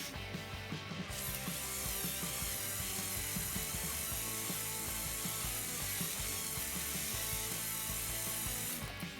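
Plastic gears of a Lego Technic tow truck running and clicking in a rapid ratcheting rattle, steady from about a second in until near the end.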